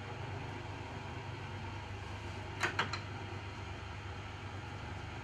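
Timken-type lubricant wear tester humming steadily, with three quick metallic clicks about two and a half seconds in as the steel lever arm holding the test block is set in place against the test ring.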